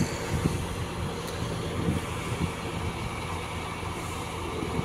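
MAN timber truck's diesel engine running steadily, a low drone with a few faint knocks.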